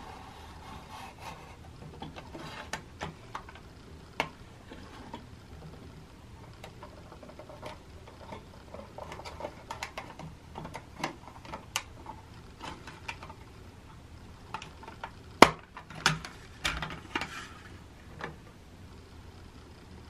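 Plastic clicks and rubbing from a personal cassette player being handled, its buttons and cassette door worked. Scattered sharp clicks throughout, with one much louder click about three-quarters of the way in, followed by a short flurry of rubbing and clicks as the cassette door is opened.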